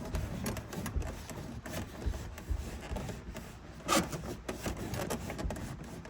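Irregular rubbing, scraping and small knocks as a part is lifted and worked loose from a car's interior, with one sharper knock about four seconds in.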